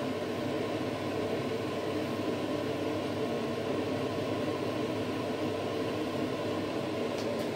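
Steady whirring hum of a running kitchen appliance's fan or motor, with a faint click near the end.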